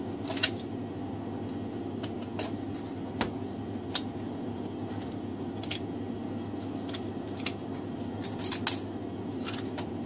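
Butcher's knife clicking and scraping against bone and the plastic cutting board while deboning a leg: sparse, irregular sharp clicks, the loudest about half a second in and again near the end, over a steady low hum.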